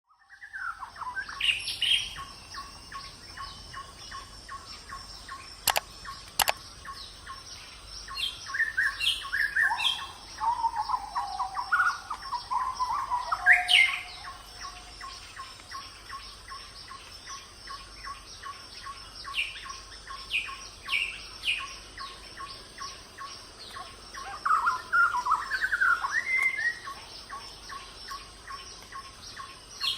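Several birds chirping and calling in short rising and falling notes, over a fast, even ticking. Two sharp clicks come about six seconds in.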